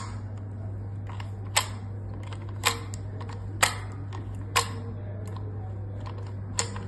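Door lock being handled, giving sharp clicks about once a second, with a few fainter ones between, over a steady low hum.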